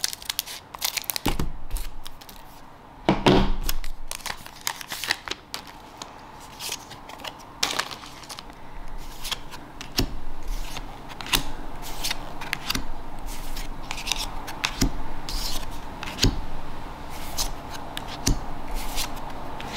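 Scissors snipping open a trading-card booster pack wrapper, loudest in the first few seconds, then the cards being slid and flicked apart one at a time with frequent light snaps and rustles.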